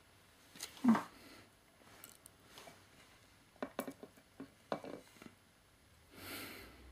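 Quiet close handling sounds: a sharp knock about a second in, a run of small clicks and taps midway, and a short breathy rush near the end.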